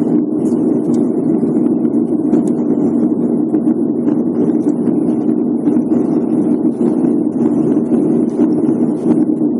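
Steady drone of an airliner cabin in flight: engine and airflow noise with a constant low hum.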